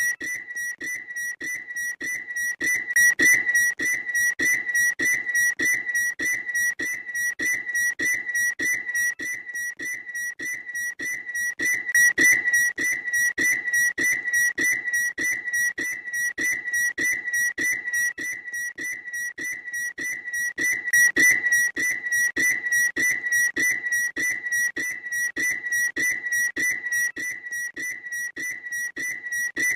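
A bird's loud, high call repeated rapidly and without pause, about three notes a second on one steady pitch, swelling and easing in loudness every several seconds.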